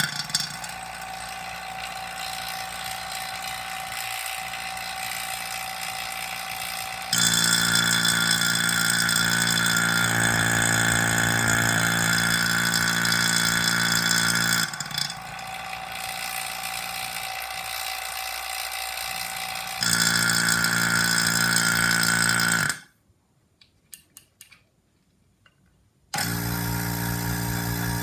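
Electric rotary vane vacuum pump running with a steady hum, louder in two stretches. It shuts off suddenly about 23 seconds in, a few clicks follow, and it starts up again about three seconds later.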